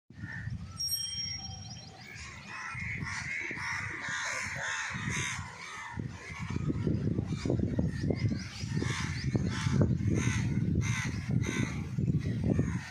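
Birds calling in the open, with a brief high whistle about a second in. Under them, a fluttering low rumble of wind on the microphone that gets heavier from about six seconds in.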